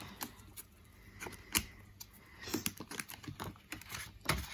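Prop paper banknotes and a clear plastic binder pocket being handled: scattered light clicks and crinkles as the bills are slid into the pocket, with a sharper tick near the end.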